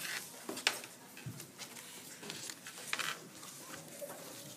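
Handling noise: a few short rustles and light taps as cardboard-loom yarn weavings are handled, the sharpest right at the start, just under a second in and about three seconds in, over a faint room background.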